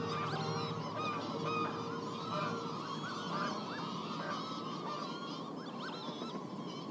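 A field recording of many birds calling at once, short rising-and-falling calls overlapping in a dense chorus, with goose-like honking among them. Sustained low tones underneath stop about two and a half seconds in.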